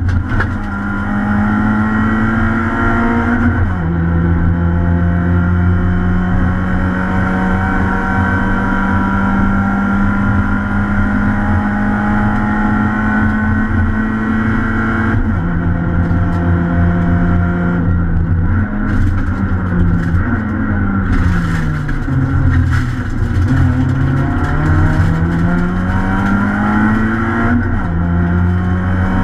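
Citroën C2 R2 rally car's four-cylinder engine at high revs, heard from inside the cabin. It pulls hard, with a drop in pitch at an upshift a few seconds in and again about halfway. The revs then fall in a series of quick steps as it shifts down, climb again, and drop at another upshift near the end.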